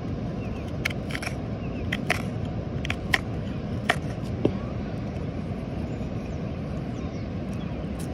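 Hook knife carving the bowl of a butternut spoon: a scatter of short sharp clicks and snicks as the blade cuts through the wood, mostly in the first half, over a steady low rumble.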